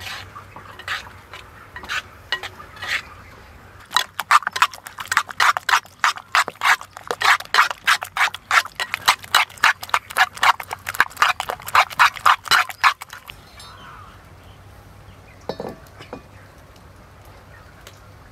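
Metal spoon beating an egg mixture in a clay bowl: a few scattered taps, then from about four seconds in a rapid, even clatter of spoon strokes against the bowl, about four or five a second, which stops after some nine seconds.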